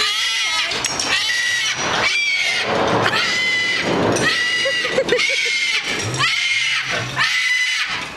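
A bird calling loudly and harshly over and over, about once a second, each call rising and falling in pitch, in an agitated state.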